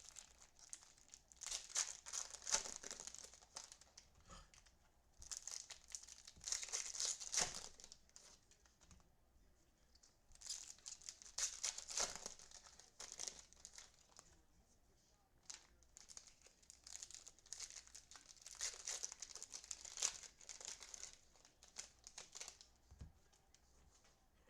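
Baseball card pack wrappers being torn open and crinkled by hand, in repeated bursts of a second or two with short pauses between.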